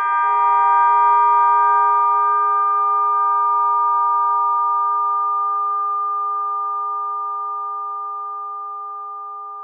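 Synthesized audio model of a 6-pood (about 100 kg) Russian podzvonny bell cast in 1901, struck once and ringing on: several steady tones fading slowly and evenly.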